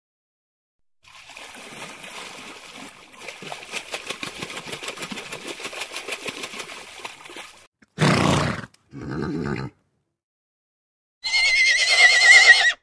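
A run of short animal calls cut one after another with silent gaps between them: a long stretch of rapid pulsing noise, then two short loud calls, and finally a high call that wavers in pitch.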